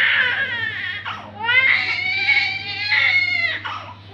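A baby crying in long wails, catching its breath briefly about a second in and again near the end.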